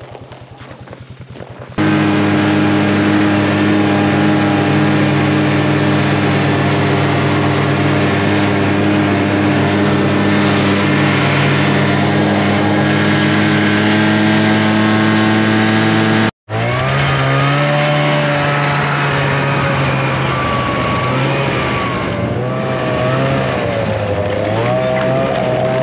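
Snowmobile engine running at a steady cruising speed, heard from the rider's seat. After a sudden break about halfway, its pitch wavers up and down as the throttle is eased and opened.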